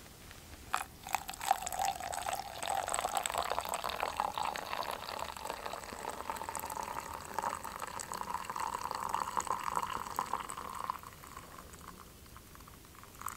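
Coffee poured in a slow, thin stream from a stovetop espresso pot (moka pot) into a metal camp mug, the pitch of the pour rising as the mug fills. The pour starts about a second in and tails off near the end.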